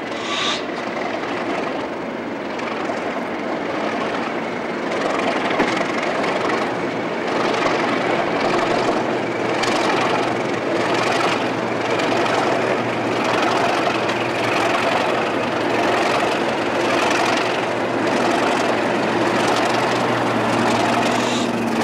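Two Class 37 diesel locomotives hauling a passenger train, their English Electric V12 engines giving a steady low drone that grows louder over the first several seconds as they approach and pass close by, over the general rumble of the train.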